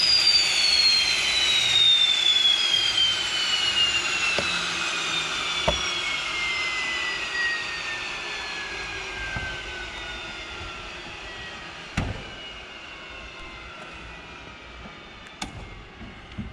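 Let L-410 Turbolet's turboprop engine winding down after shutdown: a high whine falling steadily in pitch and fading over about ten seconds. A few sharp clicks come in the middle and near the end.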